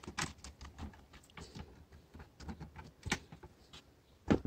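Irregular small clicks and taps of a screwdriver and stiff copper wire against plastic miniature circuit breakers as their terminal screws are worked, with a sharper click about three seconds in and a louder knock near the end.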